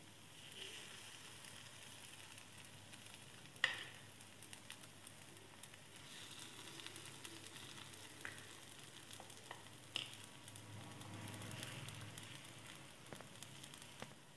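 Idli batter sizzling faintly in hot oil as it is ladled into the cups of a non-stick paniyaram pan. There are a few sharp clicks, the loudest about three and a half seconds in and another about ten seconds in.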